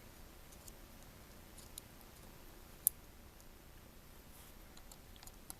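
Faint scattered clicks and taps of small parts being handled while the speaker enclosure is pushed into place inside an iPhone 5c, with one sharper click about three seconds in.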